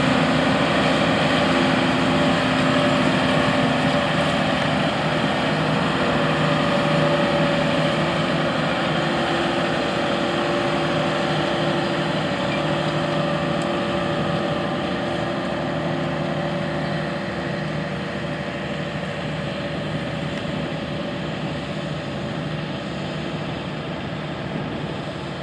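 New Holland T9.450 four-wheel-drive tractor's diesel engine running steadily under load as it pulls an anhydrous ammonia toolbar and nurse tank, growing gradually quieter in the second half.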